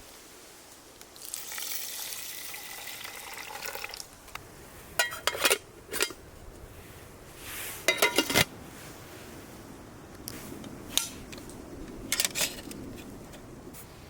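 Camp cookware being handled: a couple of seconds of water or liquid sound, then a series of sharp metal clanks and clatters of a mess tin and its lid, in short clusters a few seconds apart.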